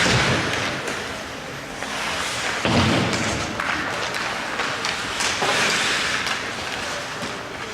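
Ice hockey game noise in a rink: a steady wash of play sound, with a dull thud about three seconds in.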